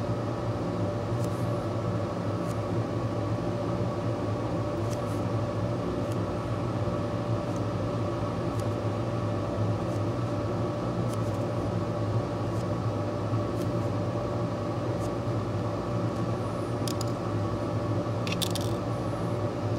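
Steady machine hum with several held tones, with faint scattered clicks of metal tweezers picking and placing tiny surface-mount parts. A short run of clicks comes near the end as the tweezers dip into a plastic parts tray.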